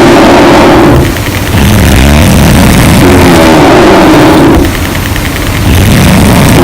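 Loud snoring from a sleeper, one rattling snore per breath, coming round about every three and a half seconds with a short quieter pause between breaths.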